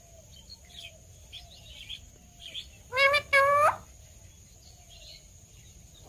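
A parrot calls twice, loudly, about halfway through, each call a clear pitched note rising slightly. Fainter short bird calls and chirps repeat about twice a second before it.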